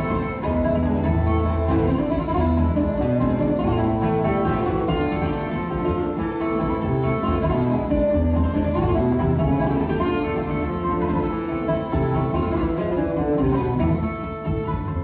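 Instrumental fado duet: a Portuguese guitar (guitarra portuguesa) playing the melody over a classical guitar (viola de fado) accompaniment, both plucked, with no singing.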